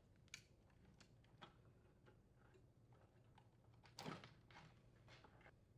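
Faint light clicks, then a brief rustle and scrape about four seconds in: a refrigerator ice auger wire harness and its plastic parts being handled as the harness is pulled free.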